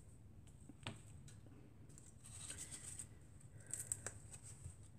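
Faint handling of a roll of foam mounting tape: a soft click about a second in, then light rustling and clicks as the tape is worked and cut from the roll.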